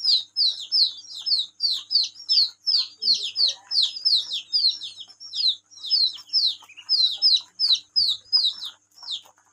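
Ducklings and chicks peeping continuously: a rapid stream of short, high-pitched peeps, each falling in pitch, about three a second.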